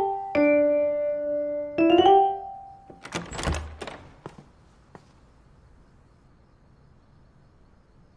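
Light piano music, a few quick notes then held chords, stopping about two and a half seconds in. About a second later comes a short noisy rush with a low thump, then only a faint room tone.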